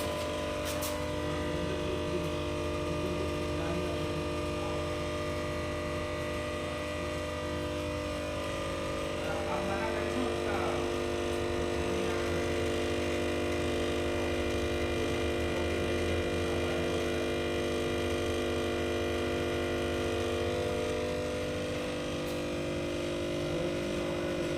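Voltage stabilizer humming steadily, an even electrical hum made of several fixed tones. This abnormal hum is the stabilizer fault being shown.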